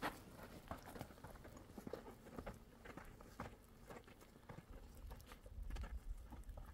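Footsteps crunching on loose gravel and scree as several people climb a steep slope: faint, irregular crunches and small stone clicks. A low rumble builds near the end.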